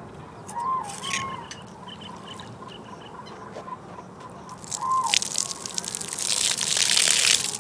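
Liquid trickling and pouring, building to a loud hissing pour over the last two seconds and cutting off suddenly, over a few scattered clicks and short chirps.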